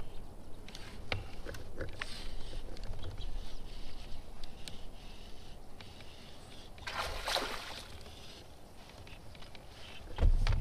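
Fishing tackle being handled in a kayak: small clicks and knocks, with water sloshing at the hull. About seven seconds in, a short rushing hiss comes as a cast goes out, and near the end there is a dull thump, the loudest sound.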